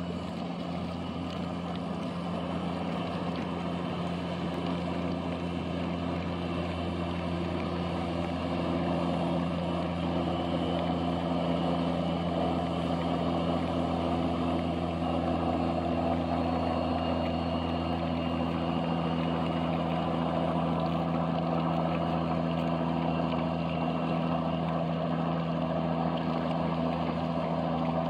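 Boat engines droning steadily at speed: a low, even hum with a few constant tones, growing a little louder about eight seconds in.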